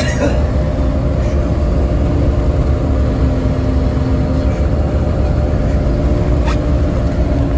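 A trail-grooming machine's engine running steadily under load, a constant low rumble with a faint steady hum above it.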